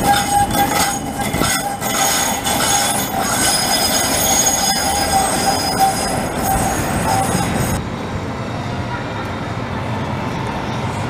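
A CAF Urbos tram passes close by with a steady high-pitched whine and squeal over the running noise. About three-quarters of the way through, the sound cuts abruptly to a duller street rumble as another tram approaches.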